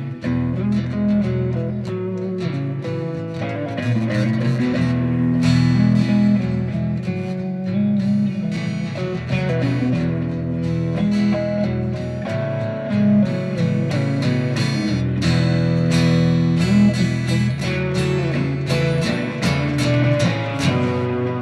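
Instrumental guitar music: strummed and picked guitars over a bass line, with no singing.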